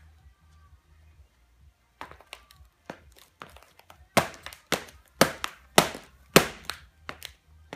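Stiletto high heels stamping on the closed lid of an old laptop: a series of sharp knocks that start about two seconds in, with five loud stomps about half a second apart in the middle and lighter taps near the end.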